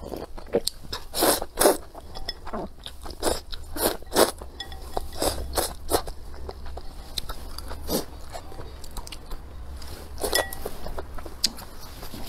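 A person slurping noodles and broth and chewing, in a series of short wet slurps.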